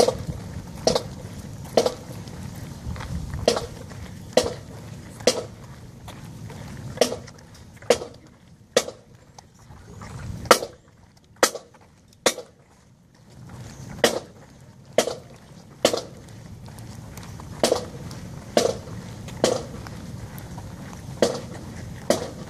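Sharp percussive clicks keeping a slow, steady marching beat, a little under one a second, in groups of three with a one-beat rest between groups, repeating throughout. Under them is a faint low rumble that drops away for a few seconds midway.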